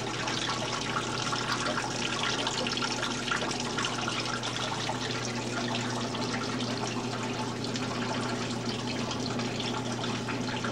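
Water trickling and splashing steadily down the hanging strands of a tabletop model waterfall, over a steady low hum.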